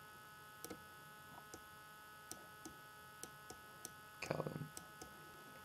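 Faint steady electrical hum of the recording setup, with scattered soft clicks, and a brief low vocal murmur about four seconds in.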